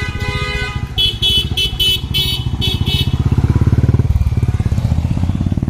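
Motorcycle engine running underway, its exhaust pulsing steadily and swelling toward the middle. About a second in comes a quick series of about seven short, high-pitched beeps, roughly three a second, lasting two seconds.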